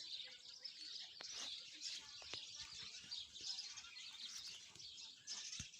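A dense chorus of many small birds chirping and twittering at once, with overlapping quick high notes.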